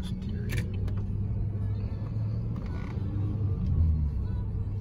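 Steady low rumble of road and engine noise inside a moving car's cabin, with a couple of light clicks about half a second in.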